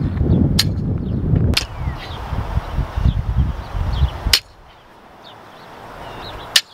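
Barbell with bumper plates clacking sharply four times during deadlift reps, over wind rumbling on the microphone that drops away about four seconds in. Birds chirp faintly.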